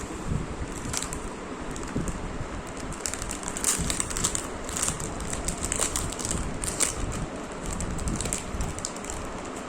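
Packaging rustling and crinkling as a parcel is handled and opened, with irregular crackles, busiest in the middle.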